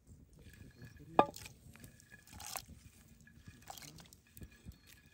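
Wet squelching and dripping as blanched tomatoes are skinned by hand and chopped vegetables are dropped into a pot of water. One sharp click, the loudest sound, comes about a second in.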